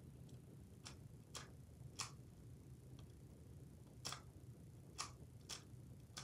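Faint, irregular plastic clicks from a Lego helicopter's landing gear being shifted by hand, several light ticks over a low room hum.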